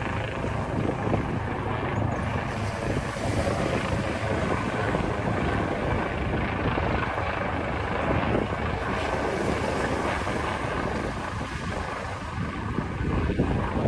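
Steady wind rushing over the microphone, mixed with the noise of open water.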